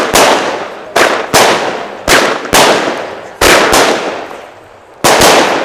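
Lesli Showbrick consumer firework batteries firing shot after shot: about eight sharp bangs in an uneven rhythm, some in close pairs, each fading out over half a second to a second.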